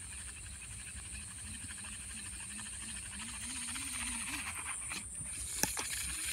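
Shimano Curado baitcasting reel being cranked, a fast, fine ticking whirr over a steady high hiss, with a few sharp clicks near the end.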